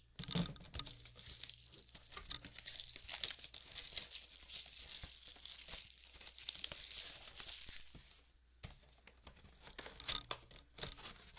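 Plastic shrink-wrap being torn and crumpled off a cardboard box of trading cards, a dense crackle that dies away about eight seconds in. Scattered clicks follow as the cardboard box is handled and its lid opened.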